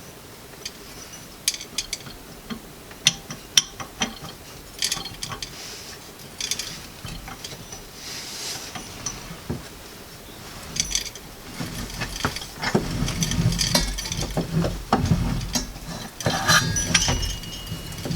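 Metal parts of a plate-type grain mill clicking and clinking as the mill is taken apart by hand. Scattered single clicks give way, about two-thirds of the way in, to a louder, busier stretch of rattling and scraping.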